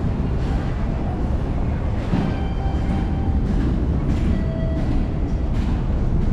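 A train running in the station with a steady heavy rumble. Faint high tones come in about two seconds in, and a short mid tone near the end.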